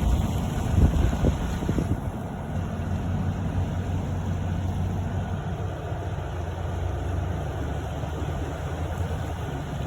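A steady rushing roar of the Lehigh River in flood, with wind buffeting the microphone in the first two seconds.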